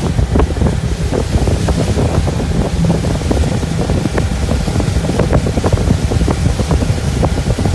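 Wind buffeting the microphone on a moving pontoon boat: a loud, continuous low rumble that flutters unevenly.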